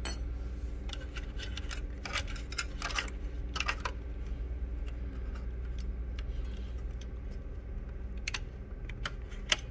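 Scattered small metallic clicks and scrapes of a steel spring hook prying at a small spring on a copier's bypass-tray feed assembly. The clicks cluster in the first few seconds and again near the end, over a steady low hum.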